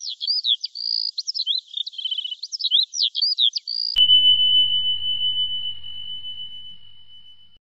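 Intro sound effects: about four seconds of rapid, high, warbling chirps like bird song, then a sharp click about four seconds in and a single high ringing tone that slowly fades out.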